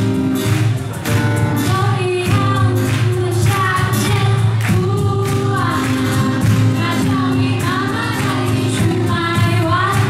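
A young woman singing a pop song into a microphone over a live acoustic band, with violin and acoustic guitar.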